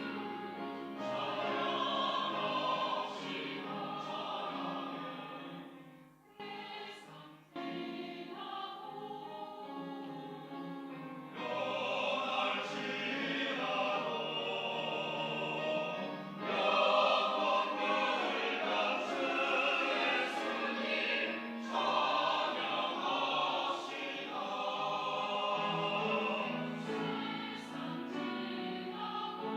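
Church choir singing a praise anthem in sustained, full chords. About six seconds in the voices briefly thin out and drop away, then come back in full.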